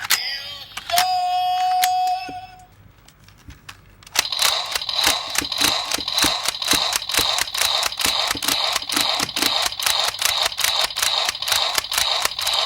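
Electronic sound effects from a Ryusoulger toy weapon's speaker. A steady beep-like tone lasts about two seconds, then comes a short pause, then a fast, even clicking of about three to four clicks a second over a steady high ringing.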